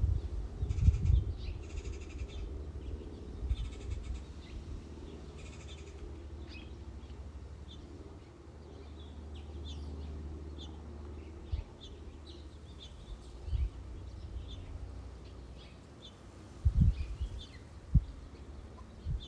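Faint, scattered chirps of small birds over a steady low rumble, with brief rustling early on and a few dull knocks in the second half from plastic LEGO pieces being handled and pressed together.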